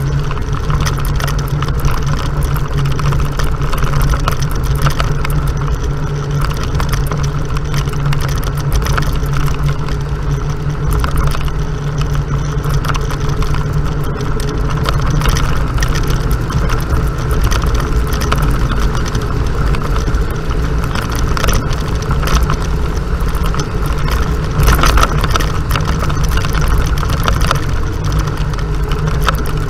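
Off-road vehicle engine running steadily while driving a bumpy dirt trail, with frequent short knocks and rattles over the engine drone.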